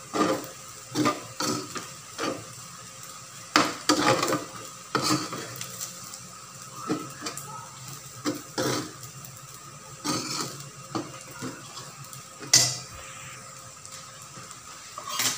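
Slotted metal spoon scraping and knocking against a metal wok as fried rice is stirred and tossed, in irregular strikes about one or two a second. The loudest knock comes near the end.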